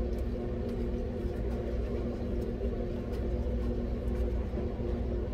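Steady low machine hum with several even tones, overlaid by a few faint light clicks and taps from hand work on the unit.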